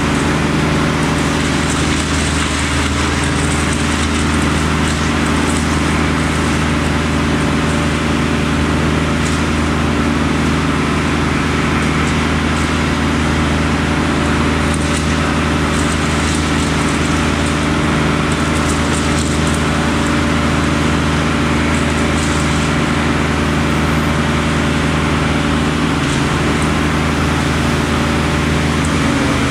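Crane engine running steadily at a constant speed, an even low drone with no let-up.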